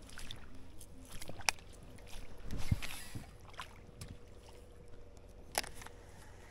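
Scattered clicks and knocks from a fishing rod and baitcasting reel being handled, with a heavier thump about two and a half seconds in, over faint wind and lapping water.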